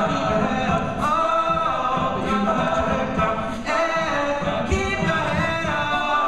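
All-male a cappella group singing in harmony, several voices together with no instruments.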